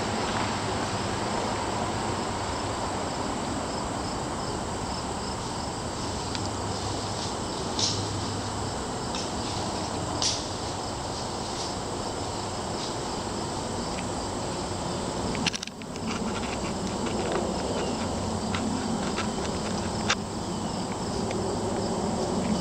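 Crickets chirping steadily in a continuous outdoor chorus, with a few sharp clicks scattered through.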